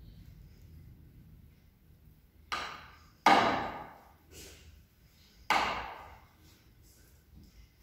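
Metal spoon clinking and scraping against a glass baking dish while mashed cassava purée is spread and smoothed. Three sharp knocks come in the middle, the second the loudest, with a few fainter taps between.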